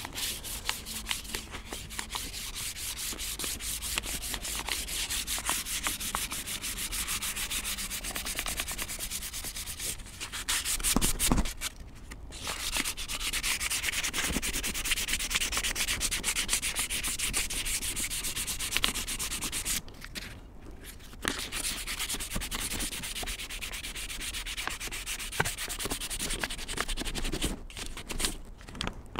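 Fine 600-grit sandpaper rubbed quickly back and forth by hand along a bare wooden hatchet handle, smoothing the wood after its varnish was stripped. The strokes stop briefly twice, about twelve and twenty seconds in.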